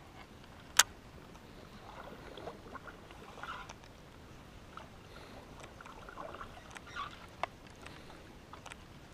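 Quiet handling sounds of fishing gear in a canoe: one sharp click about a second in and a smaller one near the end, with faint small knocks and rustles in between.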